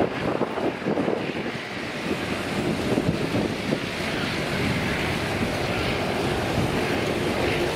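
Air New Zealand Boeing 777's twin jet engines at takeoff power as it climbs out: a steady, crackling jet rumble.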